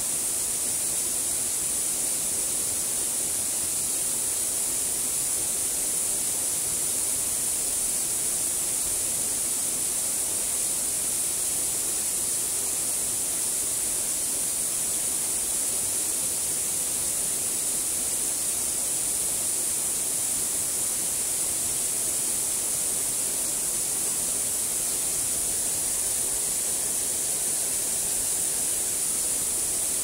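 Waterfall rushing steadily: an even, unbroken wash of water noise with a constant high-pitched hiss over it.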